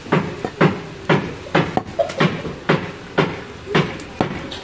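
Heavy cleaver chopping meat on a wooden log chopping block, a steady series of sharp knocks about two a second.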